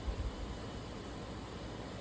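Steady outdoor ambient noise: an even hiss over a low rumble, with a brief low bump just after the start.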